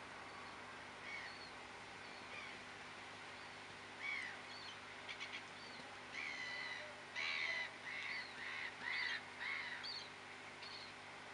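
Birds calling: scattered short chirps, then a quicker run of louder calls from about six to ten seconds in, over a steady faint hiss.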